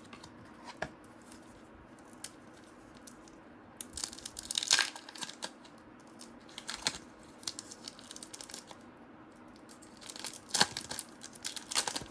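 A trading-card pack wrapper being torn open and crinkled, in short bursts about four seconds in and again near the end, with a few light clicks of cards being handled between them.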